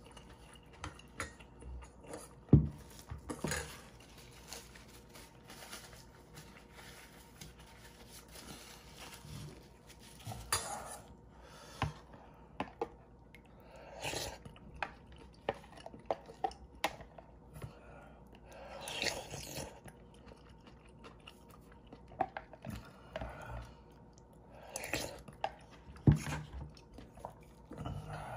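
Close-miked eating of instant ramen: chewing, with a few short sips of broth and sharp clinks of utensils against the bowl, the loudest clink about two and a half seconds in.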